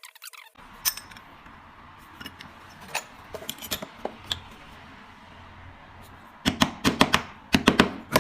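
Small metal parts of a windproof lighter clicking and clinking as they are handled for cleaning, over a steady hiss, with a quick run of louder clicks near the end.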